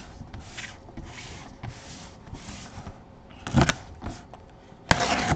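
A cardboard box being handled and turned in gloved hands: a run of short swishing rubs, then two louder sudden scrapes or knocks, about three and a half and five seconds in.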